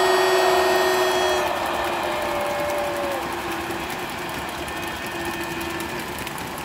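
Crowd answering with a long cheer of "hurrah" ("ura"), loudest in the first second or two and then trailing into steady cheering, with a few long held notes running through it.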